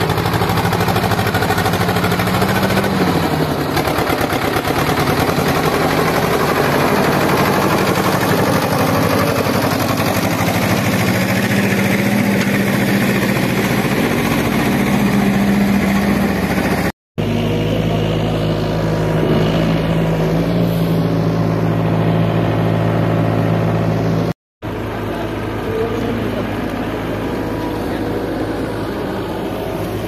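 Diesel engines working under load: a farm tractor hauling a trolley of dug earth and a tracked SDLG excavator digging. The steady engine note rises and falls now and then, and two split-second silences break it.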